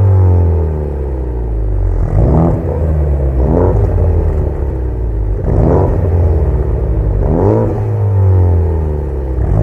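Ford Focus ST Mk3 engines and exhausts being revved. A rev falls away at the start, then come four short blips, each rising sharply and dropping back.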